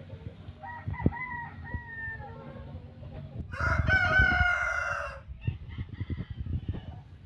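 Gamecock roosters crowing: a fainter crow about a second in, then a loud, close crow of under two seconds in the middle. Low knocks and thumps run underneath.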